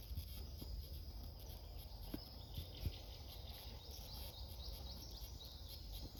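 Forest ambience: a bird repeats short, high, falling notes several times a second through the second half, over a steady low rumble on the microphone and a couple of soft knocks.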